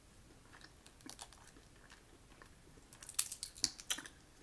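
Boiled crawfish shell being cracked and peeled by hand: a few faint clicks, then a burst of sharp crackling about three seconds in.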